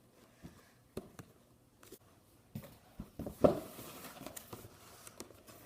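Scattered light knocks and taps from a cardboard box being handled and opened, with one louder knock about three and a half seconds in.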